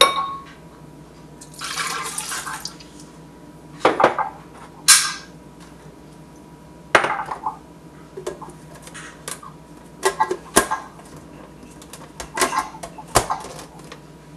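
Ingredients being added to a plastic blender jar: a short pour of milk about two seconds in, then a series of separate clinks and clatters from kitchen utensils and dishes. The jar's lid is pressed on near the end.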